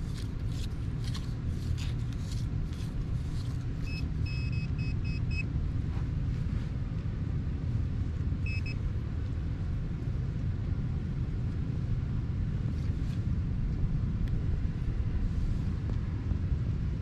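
Steady low wind rumble on the microphone, with a hand tool scraping and scooping beach sand in the first few seconds. About four seconds in, a metal detector gives a quick run of about five short high beeps, and two more come a few seconds later.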